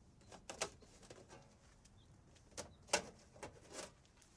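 A handful of short, sharp clicks and knocks from a microwave oven being handled and opened up for scrapping, the loudest about three seconds in.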